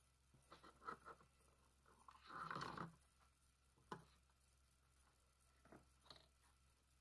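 Faint handling noise: a few light clicks, a short scraping rustle about two seconds in, a sharp click about four seconds in and two small ticks near the end, as gloved hands move the plastic bottle and hoses of an oil extractor.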